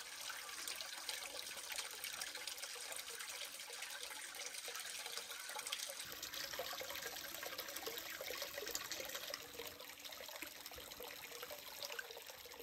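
Hot spring water pouring from a wooden spout into an open-air wooden bath: a steady splashing trickle, slightly stronger in the middle.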